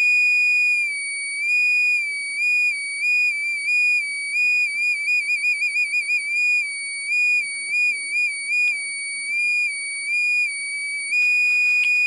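Small electronic buzzer sounding a loud, high steady tone whose pitch keeps dipping slightly and coming back, with a quick warble near the middle. The pitch shifts as a hand's shadow falls on the light-dependent resistor wired in its circuit.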